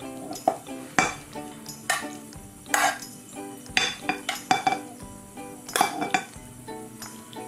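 Eating utensils clinking and scraping against a dish: about eight sharp clinks at irregular intervals, over soft background music.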